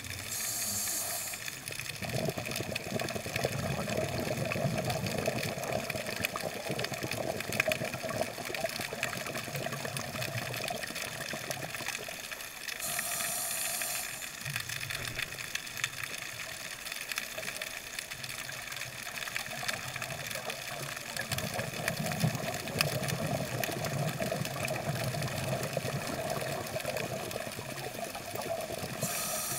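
Underwater ambient noise heard through a camera's waterproof housing: a steady muffled water rush with crackling. Short high hissing bursts come at the start, about 13 seconds in and near the end.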